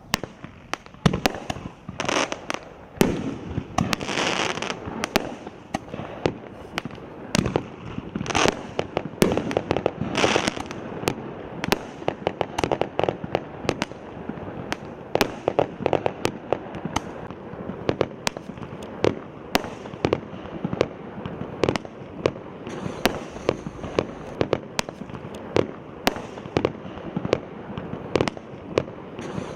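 Roman candle firing: a long run of sharp, irregularly spaced pops over a steady hiss, with several louder hissing bursts in the first half.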